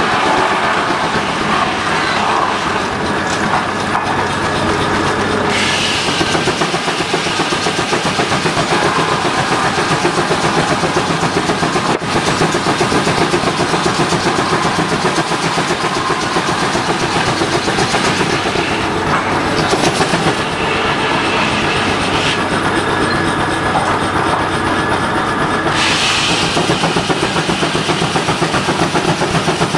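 Banting steam traction engine running, its exhaust chuffing in a steady, quick rhythm. A higher hiss comes in about five seconds in, drops out for a few seconds past the twenty-second mark, and returns near the end.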